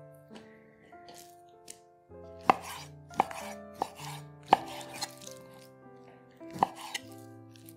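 Chef's knife cutting raw chicken breast into chunks on a wooden cutting board, with about six sharp knocks of the blade on the board starting about two seconds in.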